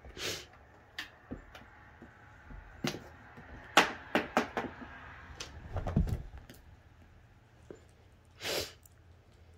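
Scattered light taps, clicks and a dull thump from cats pouncing on and batting a string wand toy on carpet, with a short rush of noise near the start and another near the end.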